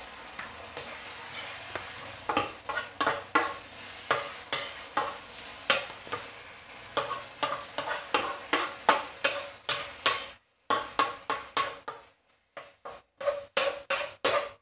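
Metal turner scraping and stirring tuna frying in a pan: a steady run of quick scraping strokes, about two or three a second, starting about two seconds in, over a light sizzle.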